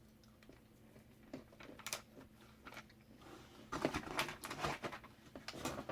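Crunching and chewing roasted cashews close to the microphone: a few scattered crunches at first, then steadier chewing from about four seconds in.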